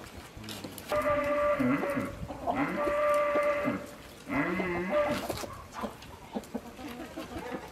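Livestock bleating: three calls, each about a second long, the last one quavering.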